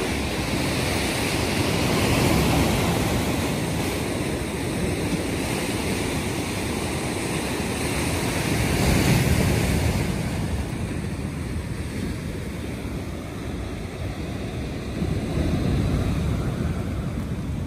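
Storm surf breaking and washing against concrete breakwaters, a continuous rush that swells with bigger waves about two seconds in, around nine seconds in and again near the end. Wind buffets the microphone.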